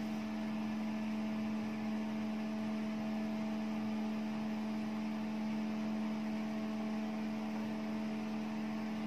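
A steady hum of a few fixed tones over a faint hiss, unchanging throughout.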